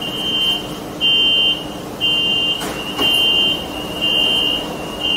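Metro train's door-closing warning beeping: a high steady beep about half a second long, repeating once a second, which signals that the doors are about to shut. Under it runs a low steady hum in the car.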